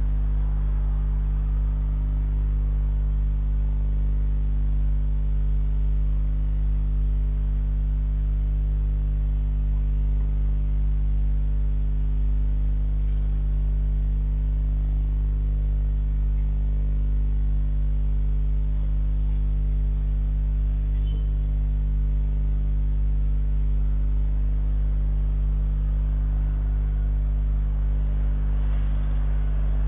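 Steady electrical mains hum with a faint hiss, picked up by a CCTV camera's microphone. Near the end a passing vehicle's noise starts to rise.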